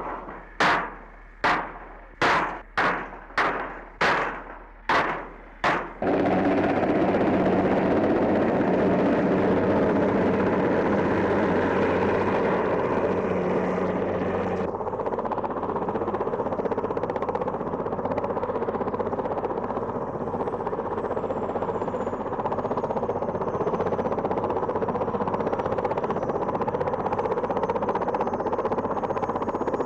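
About eight sharp, evenly spaced hammer blows, roughly one every 0.7 s, then a steady noisy din that starts abruptly about six seconds in and runs on.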